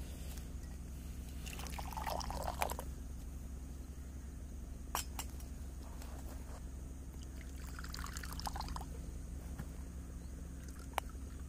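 Liquid being poured in two short pours, one about two seconds in and another about eight seconds in, with a sharp click in between and another near the end.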